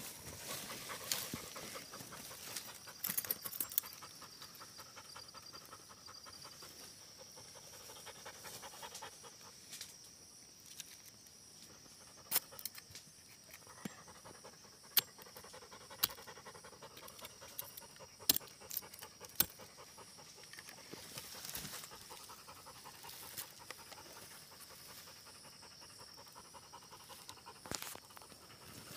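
A hunting dog panting close by, with scattered sharp clicks and a steady faint high tone behind it.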